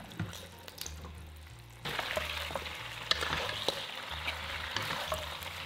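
Chicken feet sizzling in sauce in a hot wok as they are stir-fried, with a wooden spatula clicking and scraping against the pan. The sizzle jumps much louder about two seconds in.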